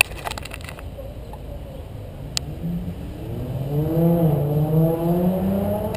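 Clicks and rubbing from a hand on the camera housing at the start, and one sharp tap about two and a half seconds in. Then a vehicle engine runs and revs, its pitch wavering, and grows louder over the last half.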